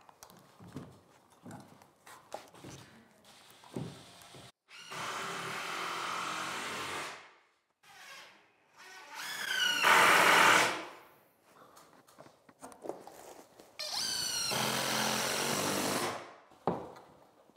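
Cordless drill driving screws into wooden ceiling framing: three runs of a couple of seconds each, the motor whine rising in pitch as it speeds up, the middle run loudest, with a few light knocks of wood and handling between them.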